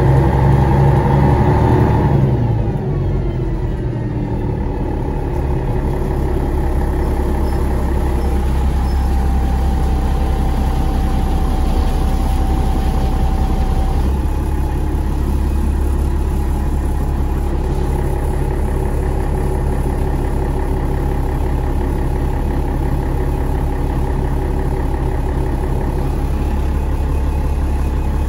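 GolAZ-AKA-5225 city bus engine heard from inside the cabin: loud at first, its pitch and level falling about two seconds in as the bus slows, then settling into a steady low drone.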